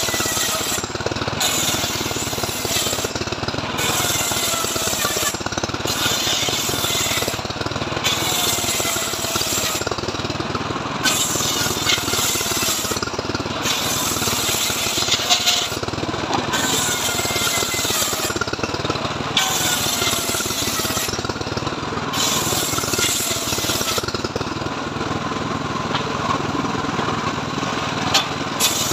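Homemade engine-driven table circular saw ripping mahogany slabs, the blade cutting in repeated passes of a second or two with short breaks between, over the steady running of the engine. In the last few seconds the blade stops cutting and the engine runs on alone.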